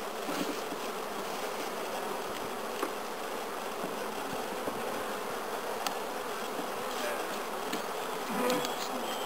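Honeybee colony buzzing steadily from an open hive, with a few faint knocks as wooden hive frames are handled.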